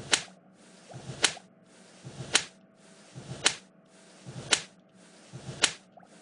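Animated face-slap sound effect: a short swish and then a sharp smack, repeated six times about once a second.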